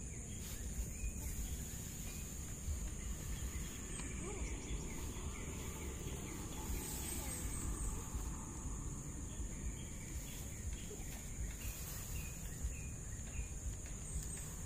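A steady, high-pitched insect drone over a low rumbling noise, with a few faint chirps.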